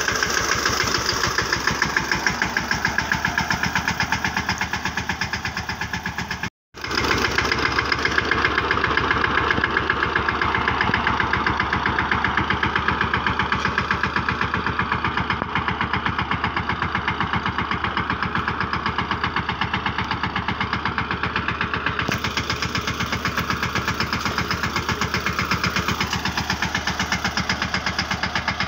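Mahindra Yuvraj 15 hp mini tractor's single-cylinder diesel engine running with an even, fast pulse as it pulls a trolley fully loaded with sugarcane. The sound cuts out for a moment about six seconds in, then carries on as before.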